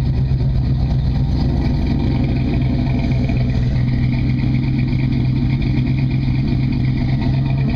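1965 Chevy C10's 327 small-block V8 with a Comp cam idling steadily, exhaust note through Flowmaster mufflers.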